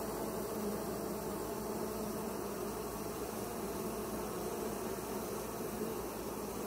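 Many honeybees buzzing at a hive entrance, a steady, unbroken hum.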